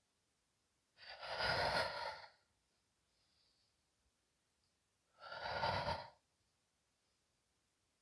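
A woman's two long, audible breaths out through the mouth, sigh-like, each about a second long and about four seconds apart, paced with a slow yoga movement.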